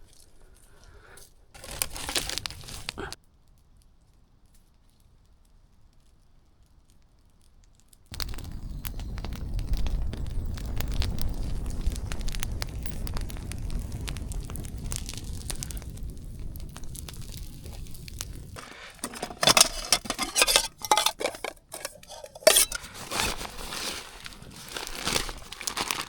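A low rumble with scattered crackles for about ten seconds, then loud crinkling and rustling of a plastic food packet being handled in the last seven seconds.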